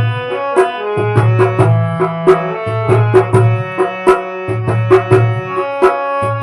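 Instrumental devotional bhajan music: a steady, even drum beat under held melody notes and a pulsing bass line, with no singing.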